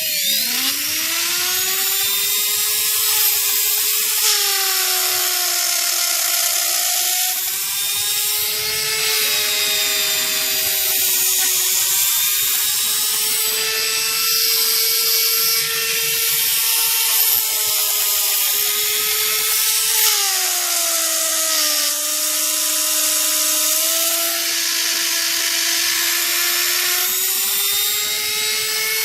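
Kyosho Moto Racer RC motorcycle's rear brushless motor running, a whine that slowly rises and falls in pitch as the speed changes, over a harsh rattling grind. This is the abnormal noise that the owner put down to the rear brushless motor's bearings.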